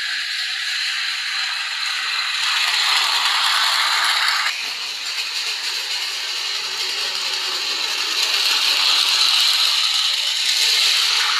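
Toy or miniature model train running along its track, its small motor and gears giving a continuous mechanical whir and rattle. The sound changes abruptly about four and a half seconds in and grows louder again near the end.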